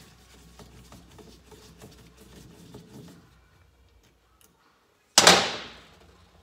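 Faint clicks of tools and parts being handled, then about five seconds in one sharp metallic strike with a short ring. This is a hammer blow on a hand impact driver, used to break loose a screw in the Kawasaki KE100's aluminium crankcase.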